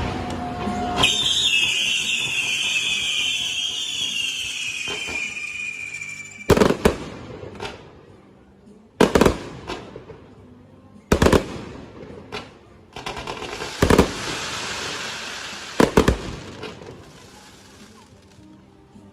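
Fireworks: a long shrill whistle falling slowly in pitch for about five seconds, then five loud bangs about two seconds apart, some trailed by crackling. Faint music underneath.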